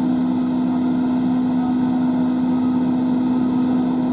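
Steady drone of industrial hemp processing machinery, with a constant low hum under an even rushing noise.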